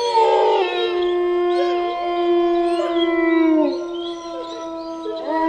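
A chorus of wolves howling together, several long howls overlapping at once, held at steady pitches, while higher wavering howls slide up and down above them. One low howl drops in pitch and ends a little past halfway, and a new howl rises in near the end.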